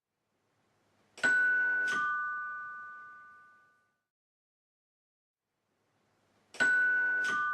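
Two-tone doorbell chime going ding-dong: a higher note, then a lower note, each ringing out and fading over a couple of seconds. It rings about a second in, and again near the end.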